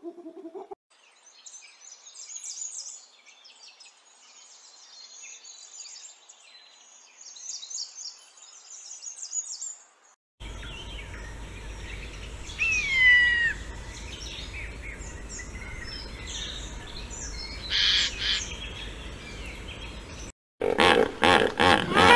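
Small birds chirping and twittering in a high, busy chorus for the first half. Then a hawk gives a clear, falling whistled call over a steady hiss of forest background. Near the end, hippos give a run of loud, repeated grunts.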